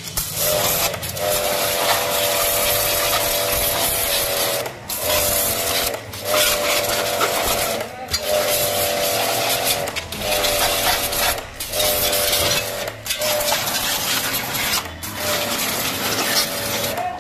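Electric AC-service jet pump running with a steady buzzing whine while its spray gun's thin high-pressure water jet hisses against a scooter's wheel and body. Pump and spray break off briefly every second or two.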